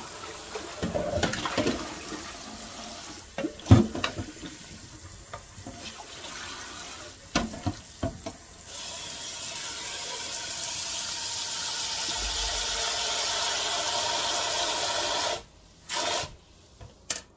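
Kitchen tap water running into a stainless steel pot in a steel sink as boiled pork bones are rinsed, with sharp knocks and clatter as the bone and pot are handled. About halfway through the water hiss grows louder and steady, then cuts off suddenly near the end.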